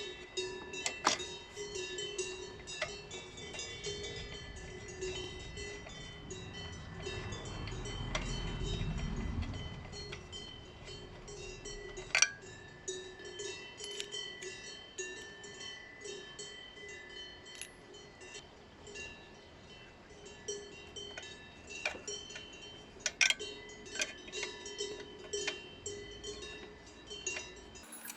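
Soft background music with chiming, bell-like tones, with sharp clicks scattered through it and a low rumble around eight seconds in.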